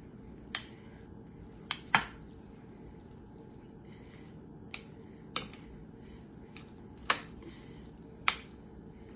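Metal spoon clinking against a bowl while avocado salad is stirred and mashed: about seven short, sharp clinks at uneven intervals, the loudest about two seconds in.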